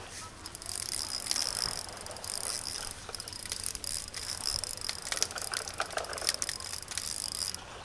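Small fishing reel being wound to bring in a hooked fish: a rapid mechanical ticking whirr that stops suddenly shortly before the end.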